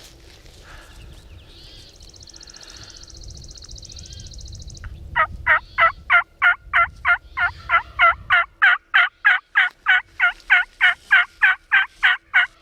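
A long, even run of about two dozen turkey yelps, about three a second, starting about five seconds in and running on loudly. A faint high buzzing note comes just before it.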